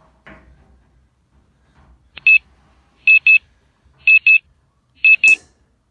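Electronic beeping: four pairs of short, high, steady beeps, about one pair a second, with a sharp click just before the first pair and a short hiss near the end.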